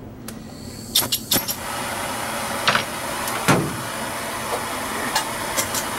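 A flint striker scrapes at the tip of a gas hand torch, with two sharp clicks about a second in as the torch lights; its blue flame then hisses steadily.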